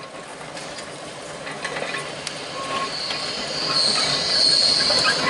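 Manx Electric Railway car 9, an electric tram towing a works wagon, rolling slowly over curved track, its wheels clicking and grinding on the rails and getting louder as it approaches. About three seconds in a high metallic squeal from the wheels starts and keeps up to the end.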